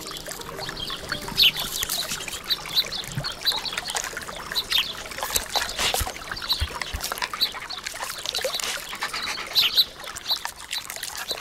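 Water splashing and sloshing in a shallow creek as someone moves through it, with grass and brush scraping and rustling against the camera in many short scratchy bursts.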